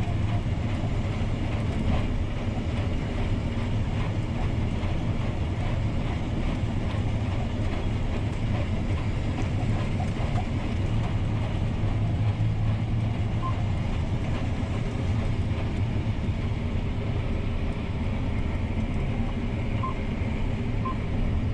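John Deere T670i combine harvester running steadily under load while cutting winter oats, a continuous low mechanical drone with no change in pace.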